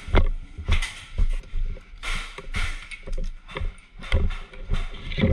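Footsteps, about two steps a second, each a dull thud, with rustling of clothing and gear between the steps.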